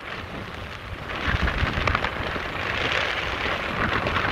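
Wind buffeting a microphone carried at speed along an open road: a steady rush of noise with a heavy low rumble.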